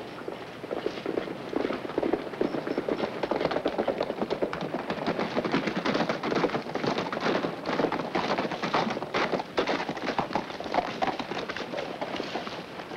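Hoofbeats of several horses, a dense, uneven clatter of thuds that starts about half a second in and eases off near the end.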